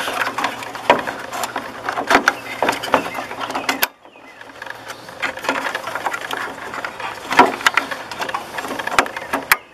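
Clicking and rattling of plastic headlight wiring-harness connectors being handled and pushed onto the bulbs' plugs, a string of irregular small clicks and knocks. The sound drops out briefly about four seconds in.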